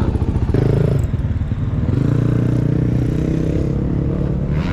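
A motorcycle engine running close by, a steady low pulsing hum whose pitch shifts a little, with some light clatter.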